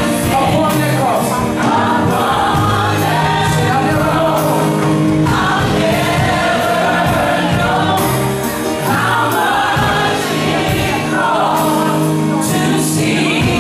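Live gospel praise-and-worship music: a band playing steadily under a group of voices singing.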